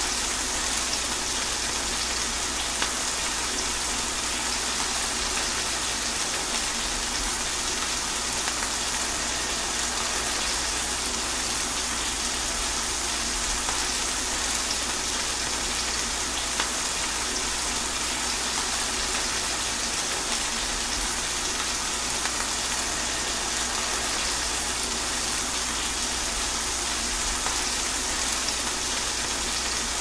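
Steady rain falling, an even hiss with faint individual drop taps here and there.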